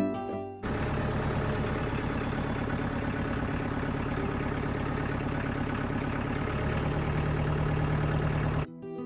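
A motor engine idling steadily with an even, low pulsing rumble. It cuts in abruptly under a second in and cuts off abruptly near the end.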